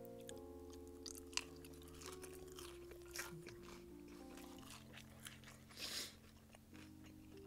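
Faint close-up eating sounds: a few crisp crunching bites and chewing, the longest crunch near the end, over quiet background music of soft held notes.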